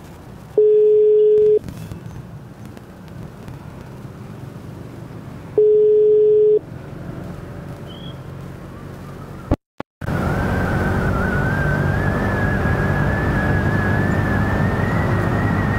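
Phone ringback tone heard through a Bluetooth helmet intercom: two steady one-second beeps about five seconds apart while an outgoing call rings. Near the end a click and a brief cut, then louder ride noise of wind and motorcycle with a slowly rising whine.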